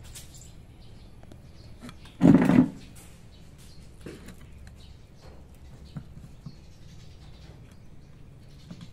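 Faint knife and plate clicks as a dragon fruit is cut and pulled apart by hand. About two seconds in there is one loud, short cry lasting about half a second.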